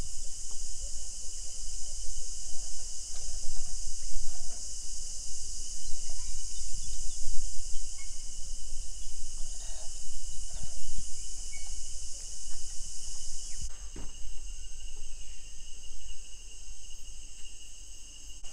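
Dense rainforest insect chorus: a steady, shrill high buzz with a thinner, lower continuous whine beneath it. The high buzz thins and changes character about three-quarters of the way through. A constant low rumble runs underneath.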